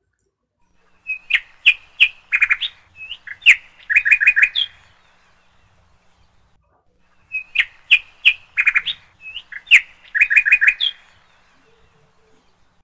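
Bird-like chirping: a quick phrase of high chirps and short trills, about four seconds long, heard twice with exactly the same pattern, starting about a second in and again about seven seconds in.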